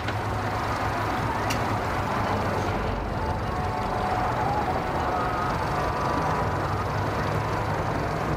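An engine idling steadily with a low hum, with one light knock about a second and a half in.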